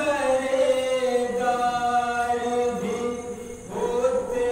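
A man's solo voice chanting a devotional kalam into a microphone, drawing out one long line on held notes, then pausing briefly before starting the next line near the end.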